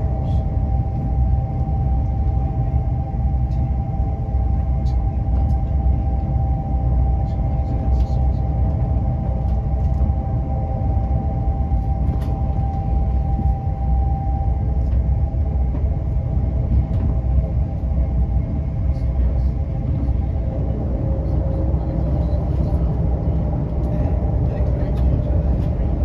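Interior of a Class 350 Desiro electric multiple unit running at speed: a steady low rumble of wheels on rail, with a steady electrical whine from the traction equipment that fades about halfway through as lower tones take over.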